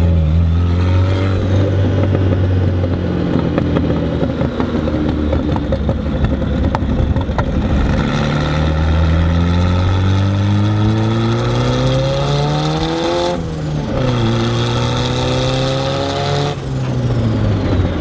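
Turbocharged Datsun 240Z engine and exhaust heard from inside the cabin while driving. The engine note holds fairly steady, then climbs under acceleration and drops sharply at two upshifts, one about two-thirds of the way through and one near the end.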